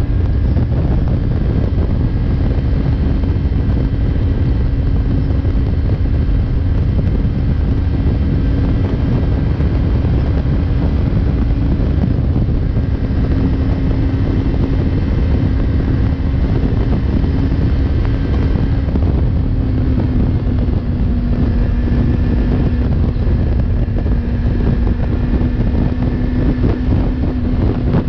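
Yamaha MT-03 motorcycle engine held at steady high revs at highway speed, about 130 km/h, with heavy wind buffeting on the microphone. The engine note drops slightly about two-thirds of the way through.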